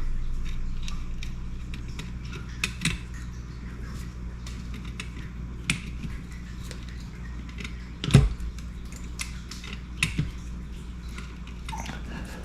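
Scattered small clicks and taps of tools and small parts being handled on an electronics workbench, with a louder knock about eight seconds in, over a steady low hum.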